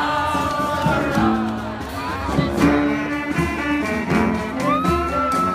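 Street brass band playing: a sousaphone bass line of steady held notes under higher horn phrases, with drum beats and some crowd voices.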